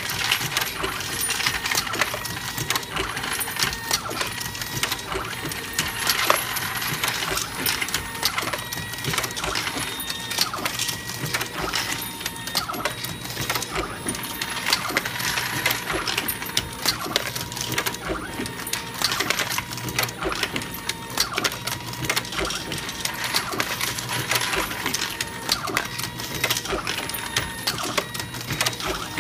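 Motor-driven AmmoBot MK1 automated reloading press loading 9mm Luger cartridges at production speed, close to 1700 rounds an hour. It makes a steady clatter of rapid mechanical clicks and metallic clinks.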